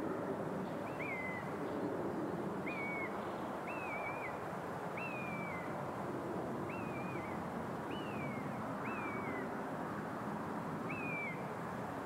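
An animal's short, high-pitched call, repeated about eight times at uneven intervals, each note dropping in pitch at its end, over a steady rushing background noise.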